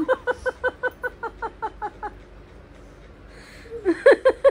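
A person laughing in a quick run of ha-ha pulses, about five a second, that stops about two seconds in and starts again near the end.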